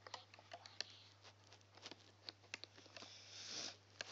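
Faint, scattered small clicks and ticks of a plastic hook working rubber bands over the pegs of a plastic loom, with a brief rustle near the end.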